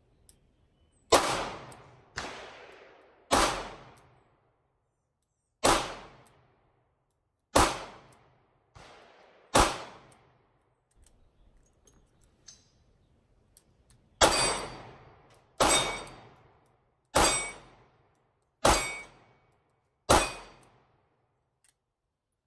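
Smith & Wesson J-frame snub-nose revolver firing: a string of shots at uneven intervals in the first ten seconds. After a short pause with a few faint clicks, five more shots follow about a second and a half apart.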